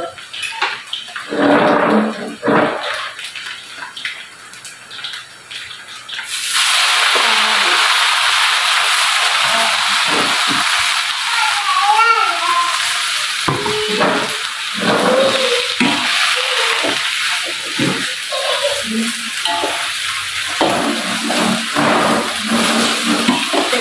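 Water spinach (kangkung) goes into a hot wok of frying belacan: a loud sizzle starts suddenly about six seconds in and runs on steadily, and near the end a spatula stirs the greens in the wok.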